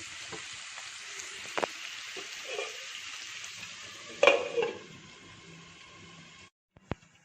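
Prawns sizzling as they fry in a pan of masala, with a few light clicks, then a loud metal clank about four seconds in as a lid is set on the pan; after it the sizzle is quieter.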